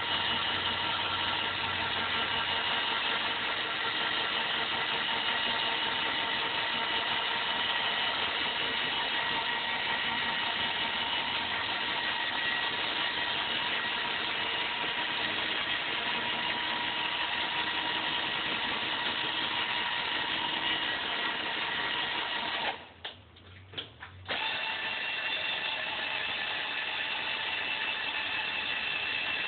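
Cordless drill running steadily as it turns the hoist of a homemade rope-hung garage freight elevator. About three-quarters of the way through the drill stops for about a second and a half, with a couple of short blips, then runs again.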